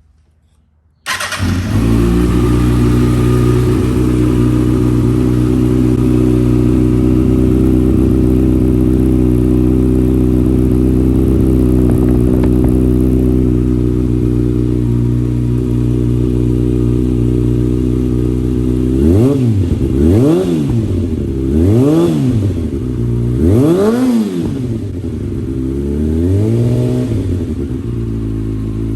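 2013 Kawasaki Ninja ZX-6R 636's inline-four running through a full Akrapovic exhaust with the baffle removed. It idles steadily, then is blipped three times in quick succession and once more gently, the pitch rising and falling each time before it settles back to idle. The note is deeper, bassier and more punchy with the baffle out.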